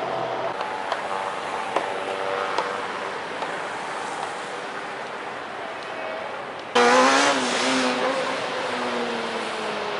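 Outdoor street ambience with car traffic going by, with a few light clicks. About seven seconds in it cuts abruptly to a much louder rushing noise with a wavering tone through it.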